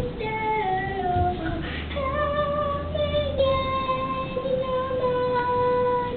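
A young girl singing alone with no accompaniment, a slow melody that steps down in pitch at first and then settles into long held notes.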